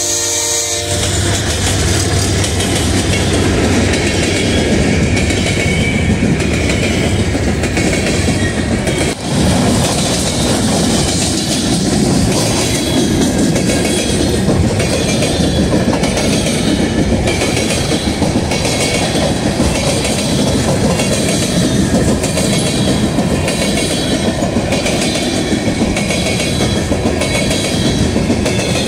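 Freight train passing close by: a diesel horn chord cuts off about a second in, the locomotives rumble past, then hopper cars roll by with a steady rhythmic clickety-clack of wheels over the rail joints.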